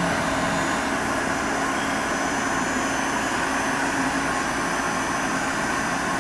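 YCM Supermax 4-axis CNC vertical machining center running a program without cutting anything: its spindle turning at about 1,600 RPM with a steady hum and a held low tone.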